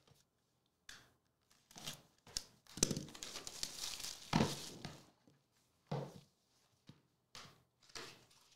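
Plastic shrink-wrap being torn and crinkled off a sealed trading-card box, in a series of short rips and crinkles, the longest running from about three to five seconds in.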